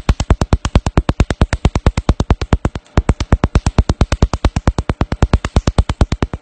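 Cosmetic skin laser firing rapid pulses, each a sharp snap against the facial skin, about ten a second in an even train, with a brief break about three seconds in.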